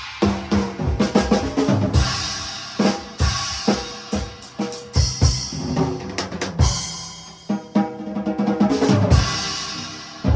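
Drum kit played solo: rapid fills and rolls across snare and toms, with bass drum hits and cymbals ringing at times.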